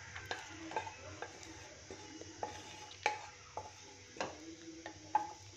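Wooden spatula stirring cinnamon and cloves in hot oil in a pan: scattered light knocks and scrapes of wood on the pan over a faint sizzle, the sharpest knocks about three and four seconds in.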